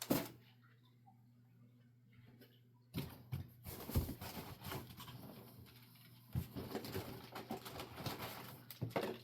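Packaging being handled during an unboxing: a click, then several seconds of irregular rustling, crinkling and light knocks as parts are taken out, over a steady low hum.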